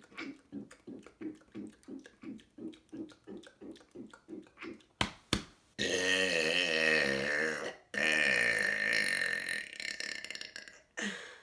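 A man's deliberate loud burps: first a run of short, quick low pulses, about three a second, then two sharp clicks, then two long, loud burps with wavering pitch, each about two seconds long.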